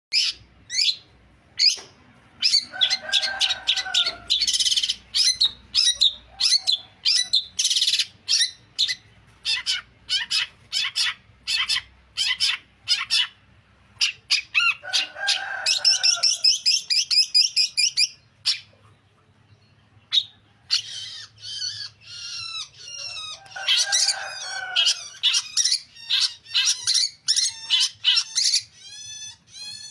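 Long-tailed shrike (cendet) singing a long, varied run of short, sharp chirps. A fast trill comes about halfway through, and three harsher, lower calls are mixed in.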